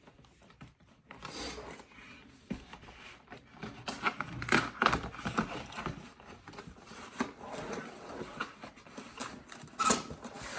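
Cardboard graphics-card box and its packaging being opened and handled: irregular scraping, rustling and tapping of cardboard, with a sharper tap near the end.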